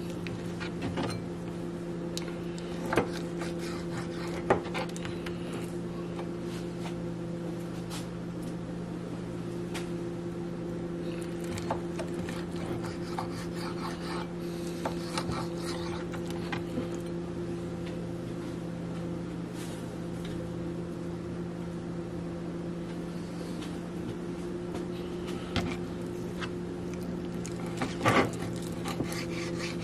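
Kitchen knife slicing raw chicken thighs on a plastic cutting board, with a few sharp taps of the blade on the board, over a steady hum.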